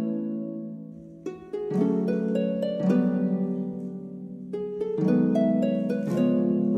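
Background music of gently plucked harp-like strings, single notes and soft chords that ring and fade, with a short lull about a second in.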